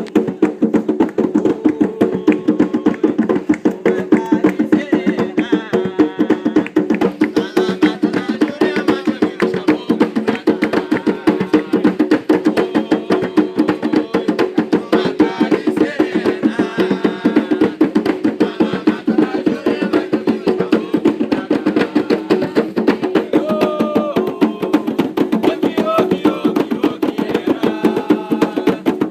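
Fast, steady hand drumming in a ritual rhythm, as played on atabaques for Umbanda chants.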